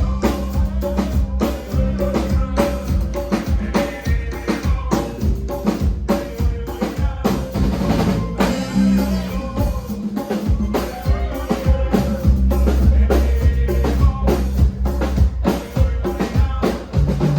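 Live band playing a cumbia medley, with drum kit strikes in a steady beat over sustained bass notes.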